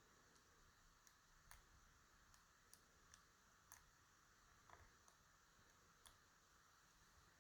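Faint, irregular clicks of a lock pick working the pins inside a DOM RS Sigma lock cylinder, about ten light ticks over several seconds.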